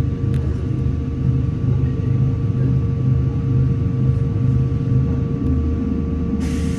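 Steady low rumble and hum of a standing electric commuter train's onboard equipment heard from inside the carriage, with a couple of steady whining tones over the drone.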